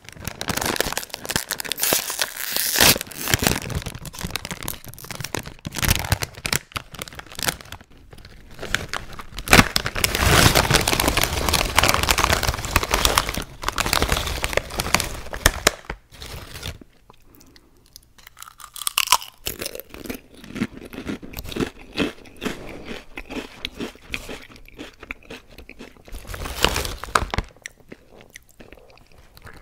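Close-miked crunching and chewing of Lay's Classic potato chips, with the plastic chip bag crinkling as a hand reaches into it. The crunching comes in irregular crackly spells and is densest and loudest about ten seconds in.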